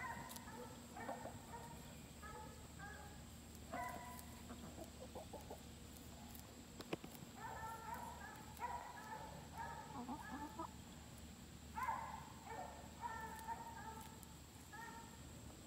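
Hens clucking, short calls coming in runs with a thinner stretch near the middle, and a single sharp click about seven seconds in.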